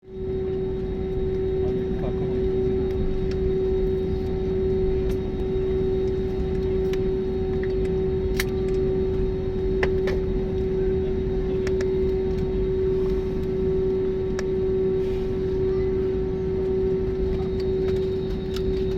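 Steady airliner cabin noise: a deep rush of engine and airflow with a constant hum tone over it, and a few faint clicks.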